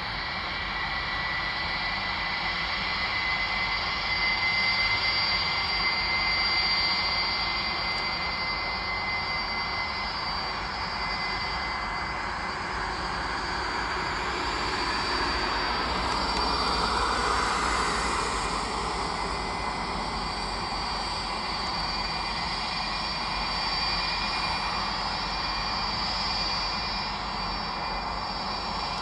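Boeing 757 freighter's two jet engines whining steadily at low taxi thrust, with high steady tones over a rushing noise that swells a little about halfway through.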